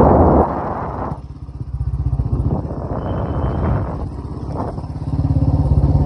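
Motorcycle engine running as the bike is ridden, its sound dropping away about a second in and building again near the end. A brief rush of noise at the start.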